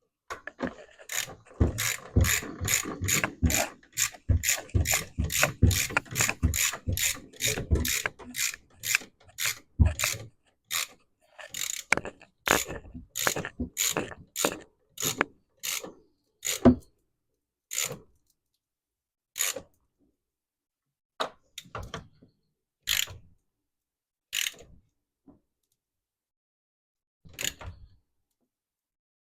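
Hand socket ratchet clicking as a nut is tightened on a new brake master cylinder. Quick runs of clicks come first, then single clicks spaced a second or more apart.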